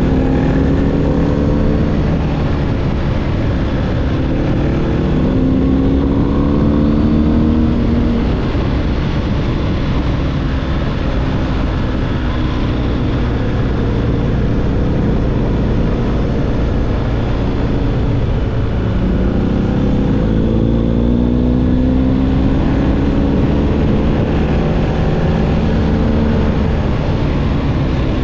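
BMW R1250GS's boxer-twin engine through an SC-Project SC1-R GT exhaust, running under way with wind rush. The engine pitch climbs under acceleration over the first several seconds and again about two-thirds of the way through, and holds steadier in between.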